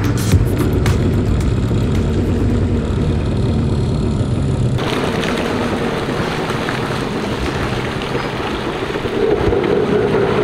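Yamaha GP800R jet ski's two-stroke twin engine running at low speed with water noise. About five seconds in the sound changes abruptly, with less low hum and more hiss.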